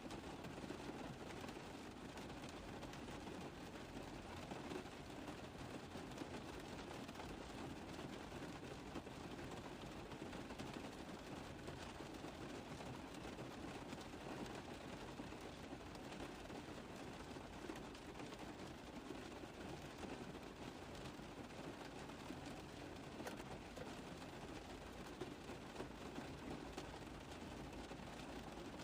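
Rain pattering on a car roof: a steady, dense spatter of drops that keeps an even level throughout.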